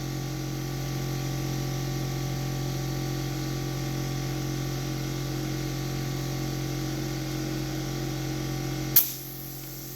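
Electric air compressor motor running with a steady hum, then a sharp click about nine seconds in, after which the hum drops away.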